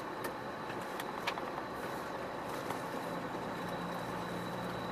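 Iveco Stralis truck driving: steady engine and road noise, with a few light clicks in the first second or so and the engine's hum settling into a steady low note about three seconds in.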